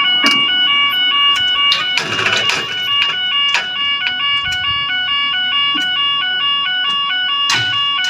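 UK level crossing's two-tone warning alarm sounding, its pitch alternating about twice a second, as the crossing closes to road traffic. A short rush of noise about two seconds in.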